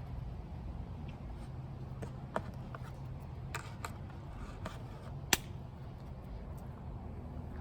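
A few light clicks and knocks, the sharpest and loudest about five seconds in, over a steady low hum.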